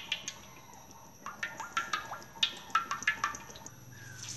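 Cooking oil glugging out of a plastic bottle as it is poured into a metal wok: a run of irregular gurgling pops, a few each second, each with a short ringing pitch.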